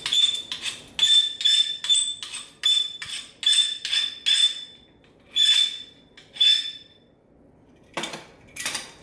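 A Chicago Cutlery kitchen knife's steel blade is scraped in quick strokes with a hand tool, about three a second, each stroke bringing out a high ringing ping from the blade. The edge is being taken off the tip to dull it. After about five seconds the strokes slow to two more, and two duller scrapes without the ring come near the end.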